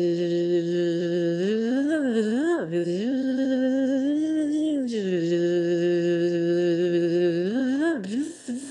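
A single voice singing long held notes. A low note is held for about a second and a half, then the pitch slides up and down. Another long steady note comes from about five seconds in, and the pitch wavers quickly near the end.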